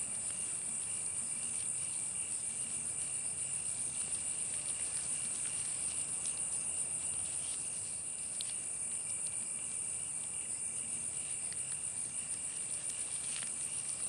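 Crickets chirping in a steady, high-pitched, rapidly pulsing chorus, with a fainter lower chirping under it.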